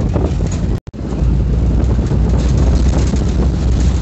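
Cabin noise inside a moving passenger vehicle: a loud, steady low rumble, with the sound cutting out completely for a moment just under a second in.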